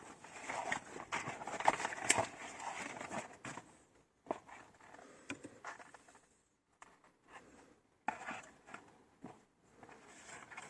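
Hands working on car parts: scraping and rustling with many sharp clicks and knocks, busiest in the first few seconds, then sparser clicks broken by short gaps.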